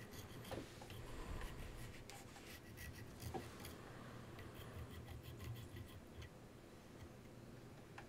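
Small flat hand file drawn back and forth over the metal lugs of a rotary switch held in a vise: faint, repeated rasping strokes that stop about six seconds in.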